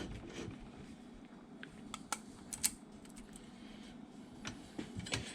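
A few light metallic clicks and clinks, like small engine parts and hand tools being handled, over a quiet room background.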